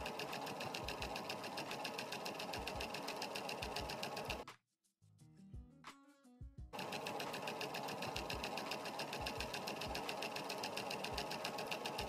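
A Bernina sewing machine stitching an applique edge with a fast, even run of needle strokes. It stops for about two seconds midway, then starts again and runs on.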